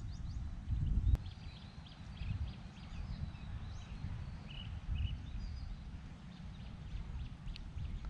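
Wind buffeting the microphone in uneven gusts, with birds calling in many short, high chirps, and a single click about a second in.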